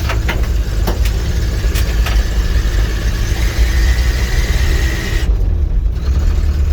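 1979 Jeep J10's AMC 258 inline-six engine and drivetrain running steadily as the pickup is driven, a deep low rumble, with a few rattling clicks in the first two seconds. A faint high whine comes in for a few seconds in the middle.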